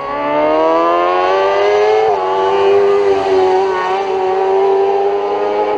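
Hill-climb racing vehicle's engine at full throttle, rising in pitch as it accelerates uphill. It drops briefly at a gear change about two seconds in, then holds at high revs.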